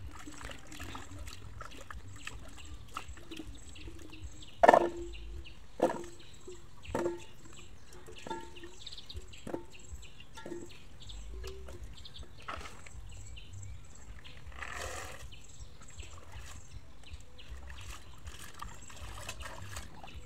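Peeled potatoes being washed by hand in steel basins of water: water sloshing, and about six knocks with a short metallic ring, roughly one a second, as potatoes are dropped into a steel bowl, the first the loudest.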